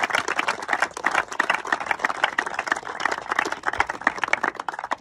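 A small group of people clapping by hand: quick, dense applause that thins out near the end.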